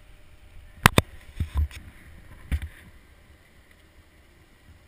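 Handling noise on a GoPro Hero HD camera's housing: two sharp clicks about a second in, followed by a few dull thumps, then only faint hiss.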